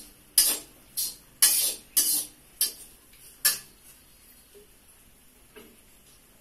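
Metal ladle scraping and clinking against a steel wok as peanuts are stirred, about seven sharp strokes over the first three and a half seconds, then stopping.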